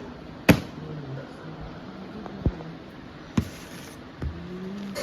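A product box and its packaging being handled: a few sharp taps and knocks, the loudest about half a second in, then three lighter ones spread through the rest.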